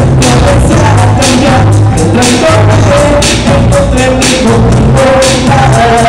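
Loud pop music through a PA system with a singer's voice over a steady drum beat, about two hits a second.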